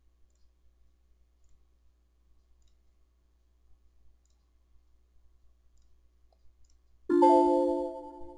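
Faint computer mouse clicks, then about seven seconds in a loud chime-like chord rings out suddenly and fades over about a second and a half.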